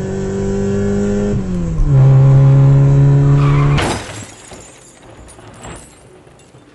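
Car engine running steadily, dropping in pitch about a second and a half in, then a car crash just before four seconds: a sudden loud impact with shattering, followed by quieter scattered debris noises.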